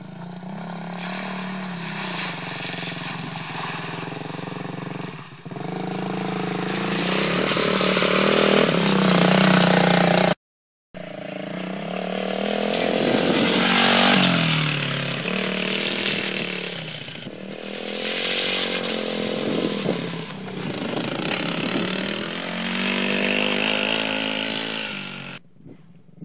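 Small children's quad bike engine revving up and down as it rides around the track, its pitch rising and falling and its level swelling as it passes close, then fading. The sound cuts out abruptly for about half a second roughly ten seconds in.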